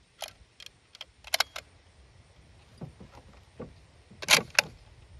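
A string of sharp metallic clicks and clacks from the action of a sporterized Lee-Enfield No. 1 Mk III rifle as it is handled on the bench rest, with softer knocks in between and the loudest pair of clacks near the end. No shot is fired.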